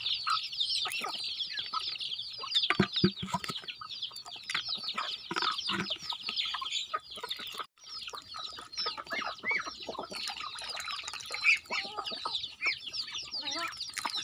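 Domestic chicks cheeping in a dense, rapid, high-pitched chorus, with adult chickens clucking lower, as the flock feeds on scattered grain. The sound breaks off briefly about halfway through.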